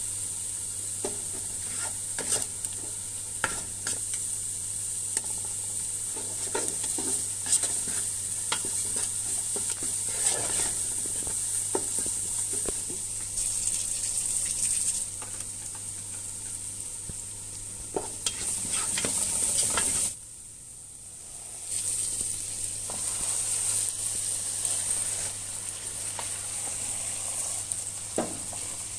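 Onions and tomato paste sizzling in hot oil in a nonstick pot, with the scrape and tap of a wooden spatula stirring the pan. The sizzle drops out for a moment about two-thirds of the way through, then comes back.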